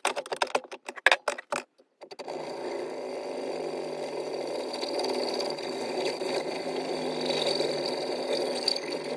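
A few clicks and knocks as the brass piece is set in the vise, then from about two seconds in a saw blade cutting steadily through the brass bar held in the vise's soft jaws.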